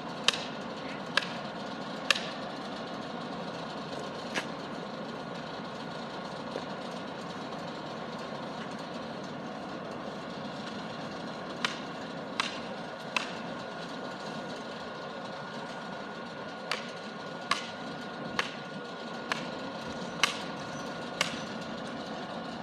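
A work engine idling steadily at the tree-removal site, with sharp knocks at irregular intervals: about four in the first couple of seconds, then a cluster of about eight from around the middle to near the end.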